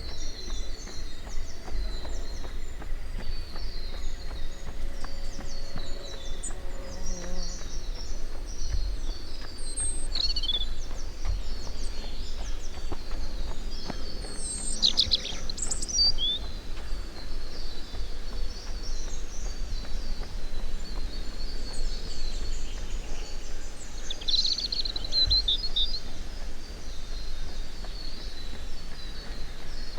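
Many small forest birds singing and chirping, with overlapping short trills and tweets throughout and a few louder calls midway and near the end, over a steady low rumble.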